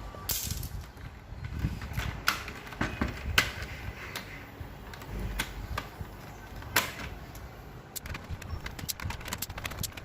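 Plastic louver blades of an evaporative air-cooler fan being unclipped and pulled out by hand: irregular plastic clicks and snaps, a few sharper ones, and a quicker run of clicks near the end.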